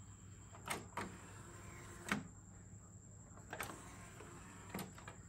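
TEAC VRDS-7 CD player's disc tray and loading mechanism at work: a faint motor whir as the tray slides, with about five soft clicks and clunks spread through, the sharpest about two seconds in.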